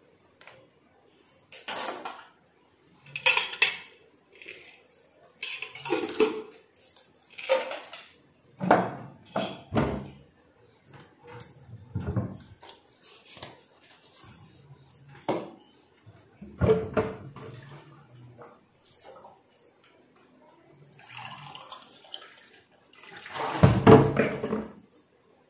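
Metal pots and utensils being handled: intermittent knocks, clinks and scrapes, with the loudest clatter near the end.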